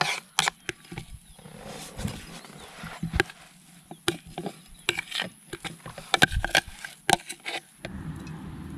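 Sharp clicks and knocks at irregular intervals, then a steady low rushing noise begins near the end.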